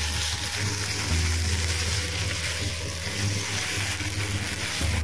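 Boiled potato pieces and crumbled chhana sizzling in hot mustard oil and ghee in a nonstick pan while being stirred with a silicone spatula. Low, steady background music runs underneath.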